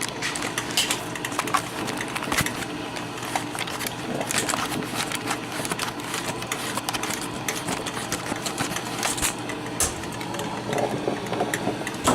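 Black & Decker thermal carafe drip coffee maker brewing: its heater sputters and gurgles as it pushes water through, in quick irregular crackles over a steady hum.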